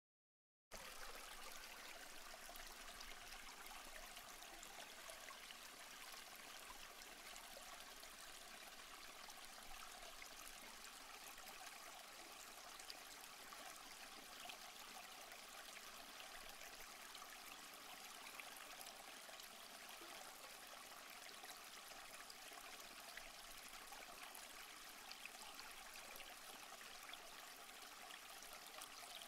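Near silence: a faint, steady hiss of background noise that starts abruptly after a moment of dead silence.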